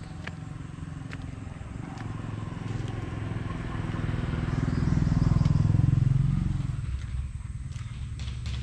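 A motor vehicle's engine passing by, growing louder to a peak about five to six seconds in and then fading away.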